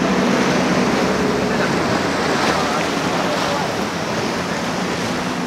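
Several outboard engines on a cabin boat running at speed, a steady drone under a loud rush of wake and water, with wind on the microphone. The engine hum is clearest at the start, fades in the middle and comes back near the end.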